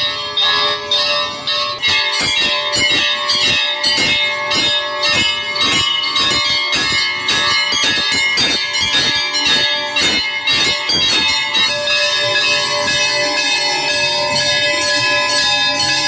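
Hindu temple bells rung rapidly and continuously, struck several times a second with their tones ringing on, turning into a denser, steadier clangour about three-quarters of the way through.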